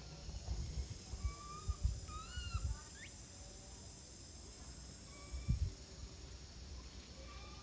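A baby monkey giving short, high-pitched squeaking cries, several in quick succession and then one more later, over a steady high-pitched drone. A few dull low thumps sound beneath the cries.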